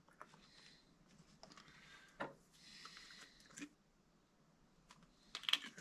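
Faint handling sounds of food preparation: a few light clicks and taps, with two brief soft rustles.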